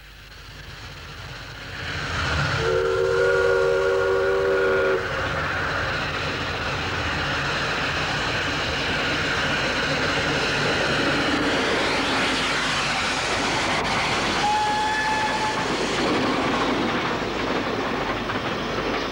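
A train running, with a long three-note chord blast on its whistle or horn starting between two and three seconds in and lasting about two seconds, then a short, higher single-note toot about fourteen seconds in.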